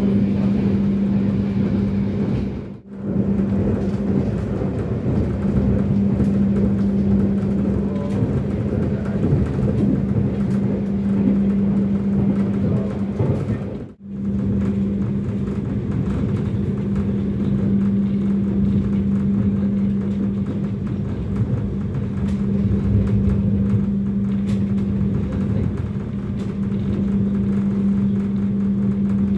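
Passenger train running with a steady rumble and a constant low hum. The sound drops out briefly twice, about three seconds in and near the middle.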